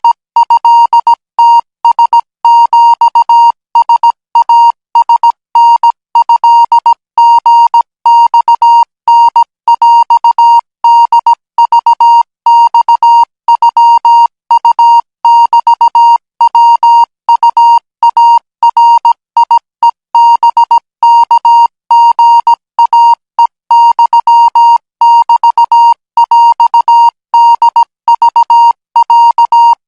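Morse code practice signal: a single steady-pitched beep keyed on and off in short and long elements, sent at 20 words per minute as Thai Morse code for radio operator training.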